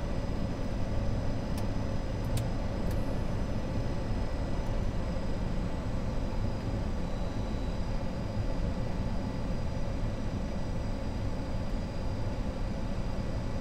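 Steady noise of an Avro RJ100 jet airliner heard from inside on final approach: its turbofan engines and the rush of air over the extended gear and flaps make a constant low rumble, with faint steady whine tones above it.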